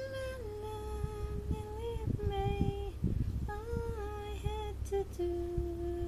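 A woman humming a slow, wordless tune in long held notes that step between a few pitches, ending on a lower held note.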